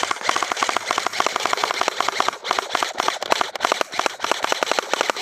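Airsoft electric gun (AEG) firing on full auto, a rapid even rattle of about fifteen to twenty shots a second in long bursts with brief breaks.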